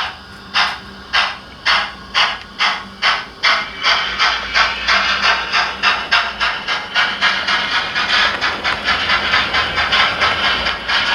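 ESU LokSound sound decoder in a Hornby OO gauge model playing Locoman Sounds' recording of a GWR 'King' 4-6-0 steam locomotive pulling away. Its exhaust beats start at about two a second and quicken to a rapid, near-continuous chuffing as it gains speed, with steam hiss between the beats.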